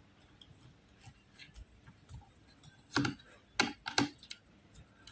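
Small clicks and knocks of laptop parts being handled and fitted back together during reassembly, with three louder sharp clicks about three to four seconds in.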